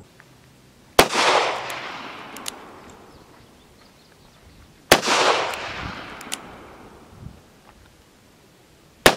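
A Ruger GP100 .357 Magnum revolver fired three times, slow single shots about four seconds apart, the last one right at the end. Each shot is a sharp crack followed by a long echoing tail.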